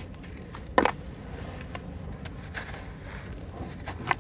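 Hands crumbling dry sand-cement lumps over a basin of water: one sharp crunch about a second in, then faint crackles as grit and powder fall into the water, and another small crunch near the end.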